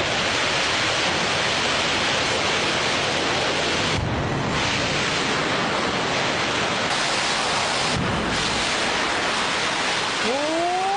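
Loud, steady rush of a flash-flood torrent surging against people standing in single file in the current. A short rising cry is heard near the end.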